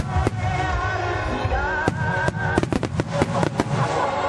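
Aerial firework shells bursting: a few bangs at the start, then a quick run of sharp bangs through the second half. Music plays under them.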